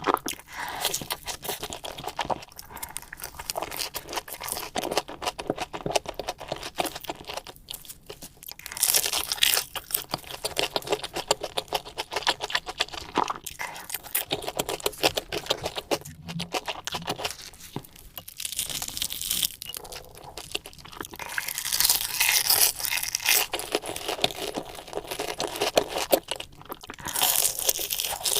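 Close-up crunching and chewing of food, a dense crackle with louder bouts of crunching now and then.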